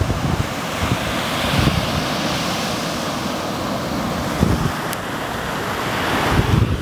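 Sea surf breaking and washing onto a sandy beach, with wind buffeting the microphone in uneven low gusts.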